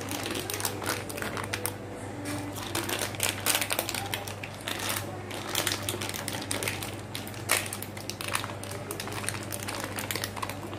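Plastic packet crinkling and crackling in irregular bursts as butter is squeezed out of it into a bowl of flour, over a steady low hum.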